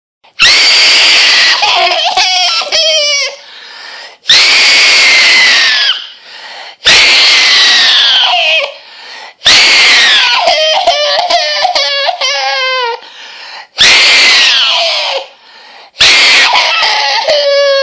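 A child screaming very loudly: six long shrill screams, each falling in pitch, about every two to three seconds, with wavering, crying sobs between them.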